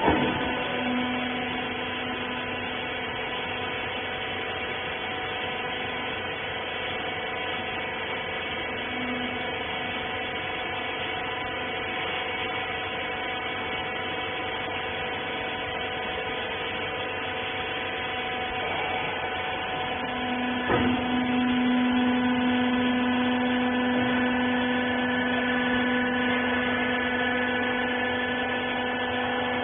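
Rag compression baler's hydraulic motor and pump running with a steady hum of several tones. A knock about two-thirds of the way through, after which the hum gets louder.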